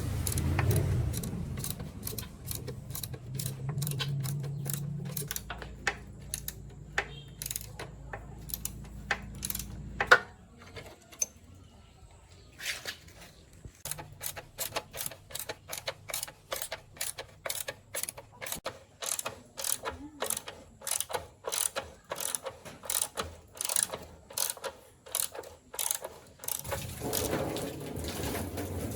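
Hand-tool work on motorbike parts: a long series of sharp metallic clicks, settling into about two clicks a second in the second half. A steady low hum runs under the first ten seconds and stops with one loud knock.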